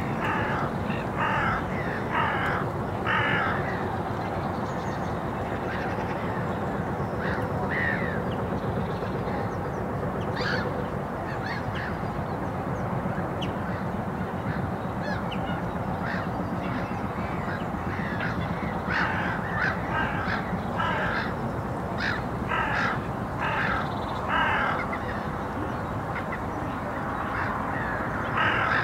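Birds calling in harsh, scattered bursts over a steady low background rumble. The calls come in a cluster at the start, a few around the middle, and a longer run in the second half.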